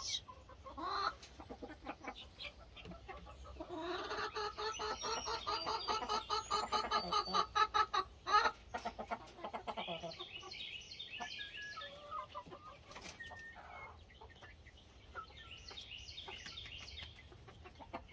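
Chickens clucking in a long run of rapid clucks from about four to eight seconds in, the loudest part. Young chicks follow with short clusters of high peeping.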